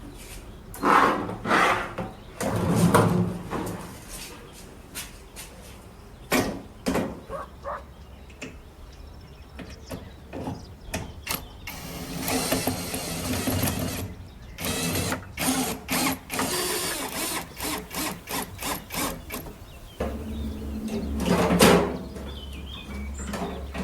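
Hand-tool work on metal parts: an irregular run of clicks, knocks and short scrapes, some of it like a ratchet turning. A steady low hum comes in near the end.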